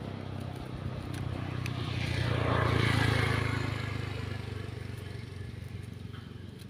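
A motor vehicle driving past on a road: engine and tyre noise grows to its loudest about three seconds in, then fades, over a steady low engine hum.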